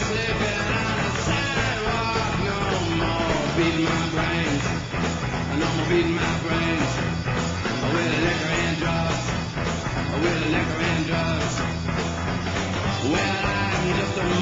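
Rock music playing continuously, with a singing voice over guitar and a steady low end.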